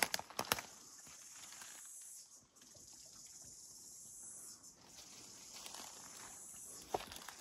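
Footsteps on forest-floor leaf litter, a few sharp crunches or twig snaps near the start and one more near the end, over a steady faint high hiss of bush ambience.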